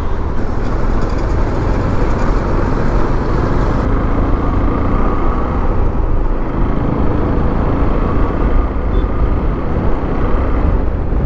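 Motorcycle ridden through city traffic: a steady, loud rush of wind and road noise on the microphone, with the engine and passing traffic underneath.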